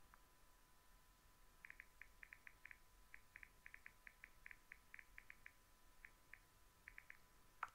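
Near silence: faint room tone with a steady thin high whine. From about a second and a half in come runs of faint, short, high chirps in quick irregular clusters, and a single click near the end.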